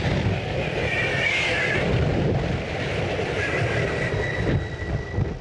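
Wind buffeting the microphone of a moving e-bike rider: a heavy, churning low rumble over rushing noise. A faint thin high whine joins about halfway through.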